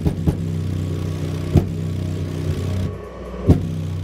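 Rock Series RKS-UL6504OS 6.5-inch mini subwoofer, sitting in its cardboard box, playing a bass-heavy song at about 120 watts: a steady deep bass drone with a few sharp beats over it.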